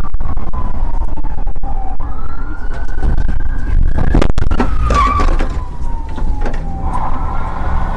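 Police cruiser's siren on a slow wail, sliding down and back up in pitch, heard from inside the car over loud engine and road rumble during a high-speed pursuit.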